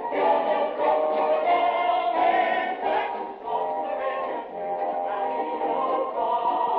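Voices singing a musical-theatre number together, in a muffled, dull-sounding live recording taped from a theatre audience.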